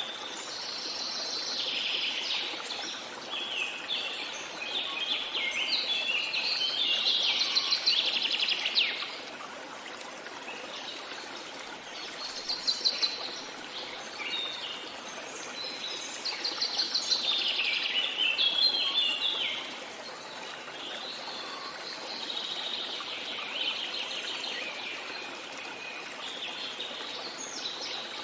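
Songbirds singing in long, rapid, chattering phrases several seconds apart, over a steady hiss of flowing water.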